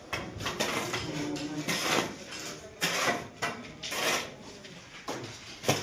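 Irregular scraping and clinking of bricklaying work: a metal trowel working mortar and tapping compressed earth blocks into place, with about a dozen short knocks and scrapes.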